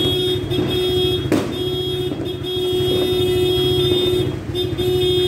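A horn blowing in long held blasts with a few short breaks, over the low steady running of an idling motorcycle-type engine.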